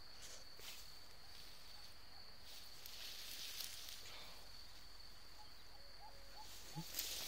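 Quiet rustling of tall grass and weeds as a pointer dog pushes through the cover, over a steady high-pitched insect buzz.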